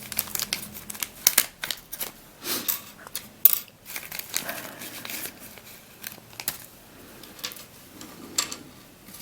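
Sticker sheets being handled and leafed through: irregular rustling and crinkling with scattered light clicks.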